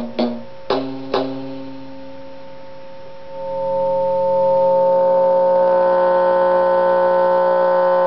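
Homemade cigar box bass played through its pickup: three plucked notes in the first second and a half, then a single sustained, steady tone that swells in about three seconds in and keeps ringing.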